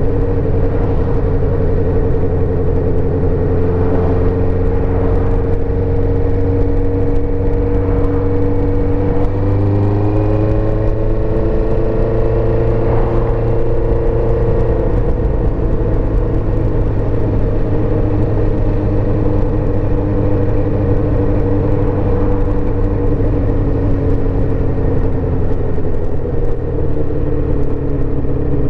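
1984 Suzuki GSX-R400's inline-four engine running under way at road speed over a steady rumble of wind and road noise. The engine note steps up in pitch about a third of the way in, holds, then falls back around halfway.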